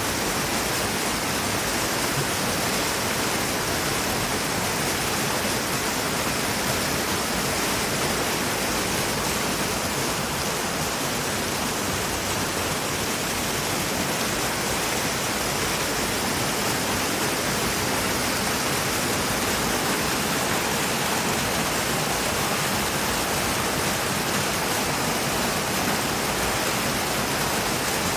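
Small river waterfall pouring over rock into a pool: a steady, unbroken rush of falling and splashing water.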